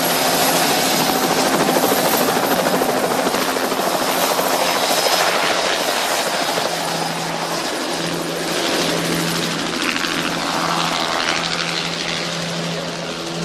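Helicopter in flight, its rotor blades beating rapidly and evenly over a steady engine noise.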